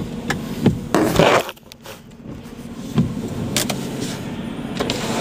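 Handling noise inside a car cabin: scattered light clicks and knocks, with a brief rustle about a second in.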